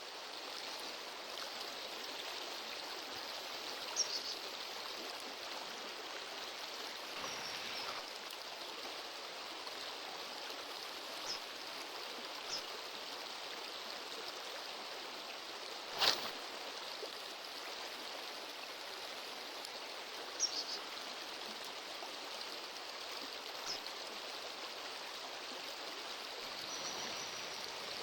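Steady rushing of a stream flowing, with a few sharp clicks or knocks scattered through it, the loudest about halfway through.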